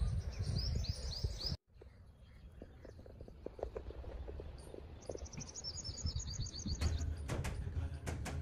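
Small birds chirping in rapid runs of short, repeated high calls, once at the start and again about five seconds in. Under them is a low rumble of wind on the microphone, and a few sharp knocks come near the end.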